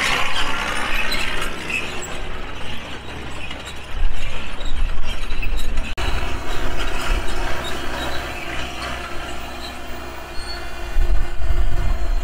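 Early Cummins diesel engine of a restored Linn half-track tractor truck idling steadily. Gusts of low wind rumble on the microphone come in about four seconds in and again near the end.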